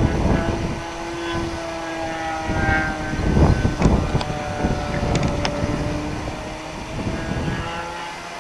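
Engine of a GP Revolver .60 radio-controlled model airplane droning in flight, its pitch slowly sliding down and back up as it passes. Gusts of wind buffet the microphone, hardest about halfway through.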